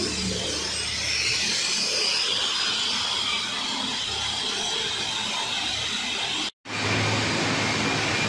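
A heavy lathe running steadily as it turns a large steel roller, a continuous mechanical noise, with a brief total break about six and a half seconds in.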